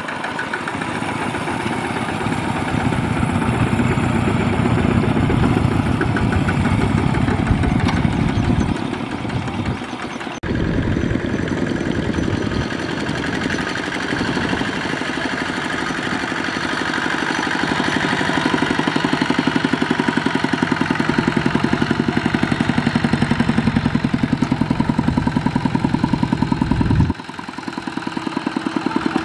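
Single-cylinder diesel engines of two-wheel walking tractors running under load as they haul trailers of rice sacks, with a steady, fast chugging beat. The sound changes abruptly about ten seconds in and again near the end, where the footage jumps to another tractor.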